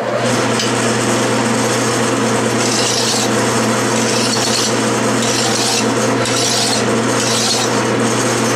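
Metal lathe running steadily with a drill bit's shank spinning in the three-jaw chuck, while a flat file is stroked across the shank several times, each stroke a rasping hiss. The file is taking the high spots off the soft, marred drill shank.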